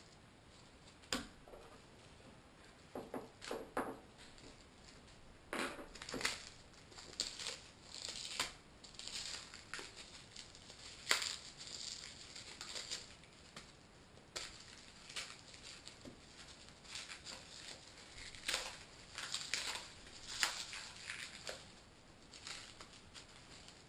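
Plastic packaging crinkling and rustling in irregular bursts as it is handled and opened by hand.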